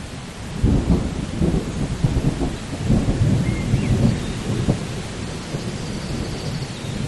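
Thunder rumbling over steady rain. The rumble swells about half a second in and fades after about five seconds, leaving the rain's hiss.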